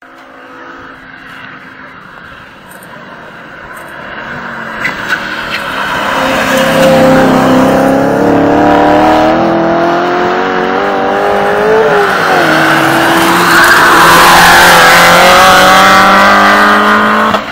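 Engines of a BMW E92 M3 and the car chasing it, growing from faint to loud as they accelerate hard toward the listener. The pitch climbs steadily, dips briefly about twelve seconds in at a gear change, then climbs again to the loudest point near the end.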